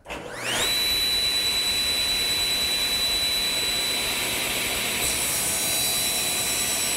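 Table saw starting up: the motor and blade spin up with a rising whine over about half a second, then run steadily at full speed. The tone shifts slightly about five seconds in.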